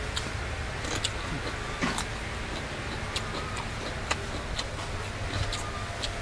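A person eating close to the microphone: scattered soft mouth clicks and smacks while chewing, over a steady low background rumble.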